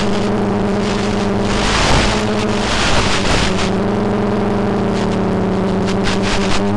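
Quadcopter's electric motors and propellers humming steadily at a held pitch, with repeated bursts of hissy crackle over the hum.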